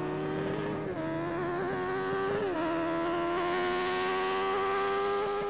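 Two drag-racing motorcycles accelerating hard down the strip. Their engines run at high revs with a steady high-pitched note, with a brief dip in pitch about halfway through, likely a gear change.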